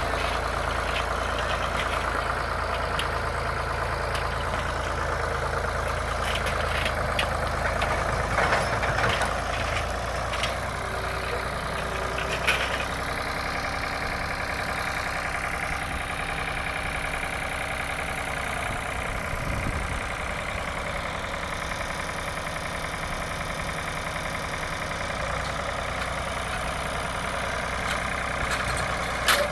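Farm tractor engine running steadily while working up the soil, with some brief clatter partway through.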